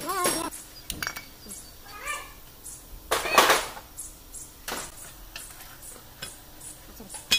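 Metal clinking and knocking as the flywheel is worked off the Tata Ace engine's crankshaft, with a longer, louder clatter about three seconds in.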